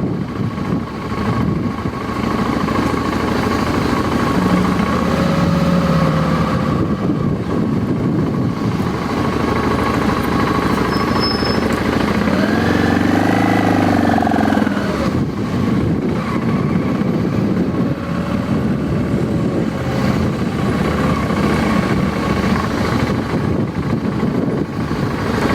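Motorcycle engine running with rushing wind noise while riding. About halfway through, a pitched engine sound rises and falls over a few seconds.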